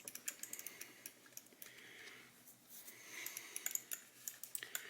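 Light clicks and taps of small plastic mouse shell parts being handled, coming more thickly in the second half.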